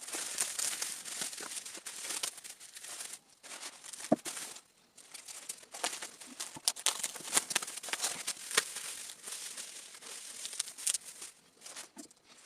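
Packaging crinkling and rustling as a delivered parcel is unpacked by hand, in an irregular run of crackles and small clicks.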